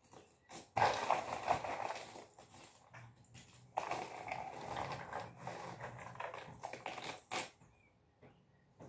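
Hands sifting through loose cardboard jigsaw pieces, a dry rattling and clicking in two long stretches, then a few single clicks near the end.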